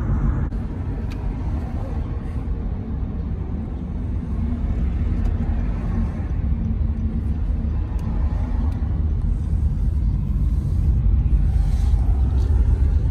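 Road and engine noise inside a moving car's cabin: a steady low rumble that grows somewhat louder in the second half.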